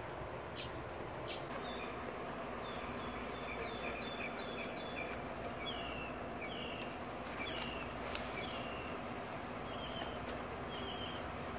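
A small bird calling repeatedly in short chirps, about one or two a second, some of them slurring downward, over a steady outdoor background hum.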